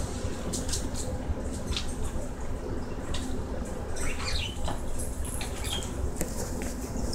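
Kittens playing on a hard wooden floor: quick light clicks and scrabbles of paws and claws, with a brief high squeak about four seconds in, over a steady low hum.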